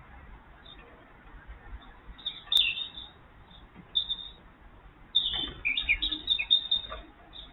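Small birds chirping in short high calls, with a busier run of chirps from about five seconds in. A single sharp click sounds about two and a half seconds in.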